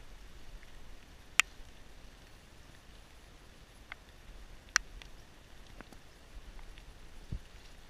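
A few sharp knocks and clicks from cargo being handled in a wooden canoe, two louder ones about a second and a half and nearly five seconds in, with a dull thump near the end.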